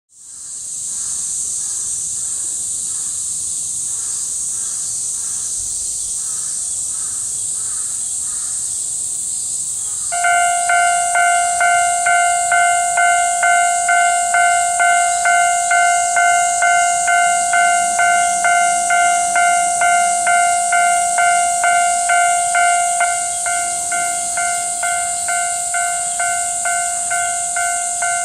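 A Japanese level-crossing warning bell starts about ten seconds in and rings in even strokes, about one and a half a second: the crossing has activated for an approaching train. Throughout there is a steady high hiss of summer cicadas.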